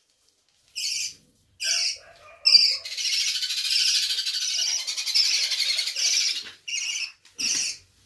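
Small pet parrots calling: three short, separate calls, then about three and a half seconds of continuous high chattering, then two more short calls near the end.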